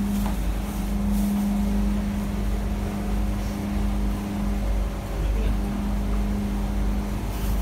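Siemens C651 metro train standing at a platform with its doors open, its onboard equipment giving a steady low electrical hum over a deeper rumble; the hum briefly dips a few times.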